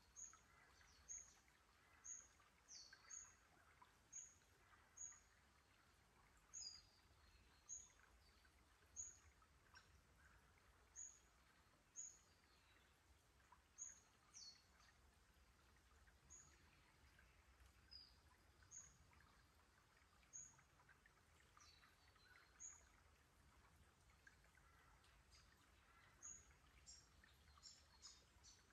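A small bird repeats a short, high chirp about once a second, with a few longer falling notes mixed in. The chirps come in a quick run near the end, over a faint low rumble.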